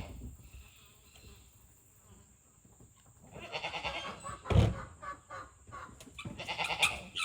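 Guinea fowl giving harsh, rapid cackling alarm calls in short bursts, about three of them, as it is being caught. A loud thump comes about halfway through.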